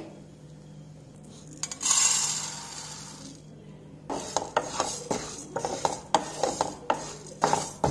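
Spatula stirring and scraping urad dal as it dry-roasts in a nonstick kadai: repeated quick clicks and scrapes against the pan from about four seconds in. A brief hiss comes about two seconds in.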